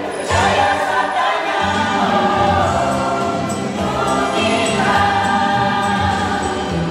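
A mixed church choir of women and men singing together into microphones, with long held notes.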